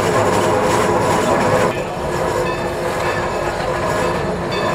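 Steam locomotive Sierra Railway No. 3 running, heard from aboard: the steady rumble and clatter of the moving train with some held ringing tones over it. About two seconds in the sound drops a little and changes character.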